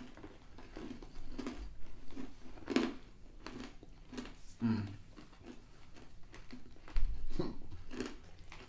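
People chewing honey cashews: irregular soft crunches of chewing, with a louder low thump about seven seconds in.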